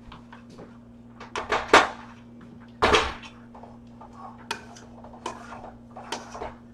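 Metal mixing bowl knocking and clanking against a pot on a gas stove as it is set down, the loudest clank about three seconds in, followed by a few lighter clinks as it is handled.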